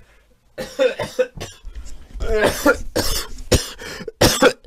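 A man coughing, a run of harsh hacking coughs that keeps going and gets longer from about two seconds in. It comes across as a smoker's cough.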